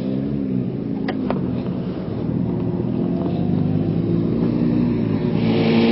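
Kawasaki ZX-6R inline-four sportbike engine running at low revs while the bike is ridden slowly, its note drifting gently and growing gradually louder. Near the end the engine note steadies and rises a little, joined by a rushing hiss.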